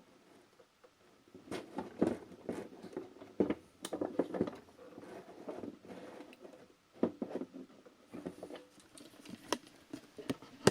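Irregular clicks, knocks and rattles of a tool and the blower's plastic housing being handled as the blower fan's retaining nut is forced.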